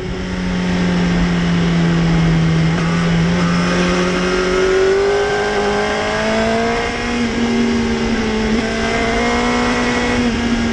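Yamaha YZF-R1 (2004–2006) 998 cc inline-four engine running under throttle while riding, with wind rushing over the microphone. The engine note climbs between about three and five seconds in, then holds steady.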